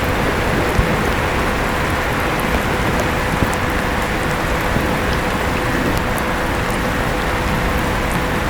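Steady rain falling, with scattered drop ticks, and an electric fan running throughout with a steady hum.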